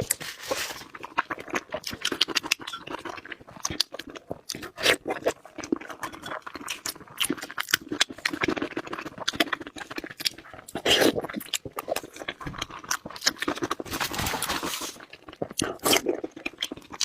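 A person chewing crispy fried chops, with many irregular sharp crunches and chewing sounds between them.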